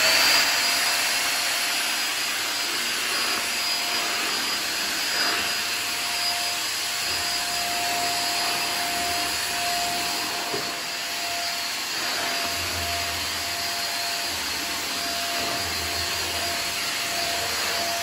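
A 600 W 2-in-1 upright stick vacuum cleaner, just switched on, spins up to speed in the first moment, then runs with a steady whine and rushing air while its floor head is pushed along a tiled floor.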